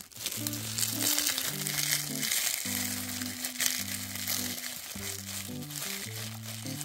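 Dry seasoned laver (gim) being crushed by a plastic-gloved hand, a dense crackling and crinkling of brittle seaweed and plastic that eases off near the end, over background music.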